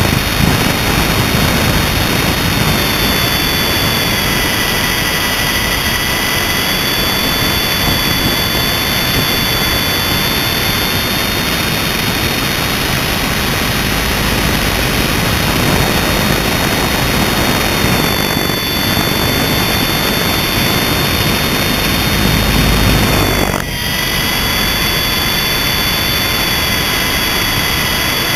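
Electric motor and rotor of an MJX RC helicopter running in flight, heard from a GoPro mounted on the helicopter: a steady high whine of several tones over a loud rushing noise, the pitch drifting slightly, with a brief dip in level about twenty-four seconds in.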